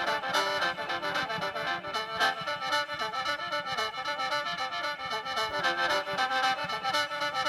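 Instrumental mor lam band music: a reedy khaen melody of sustained chords over a steady drum beat.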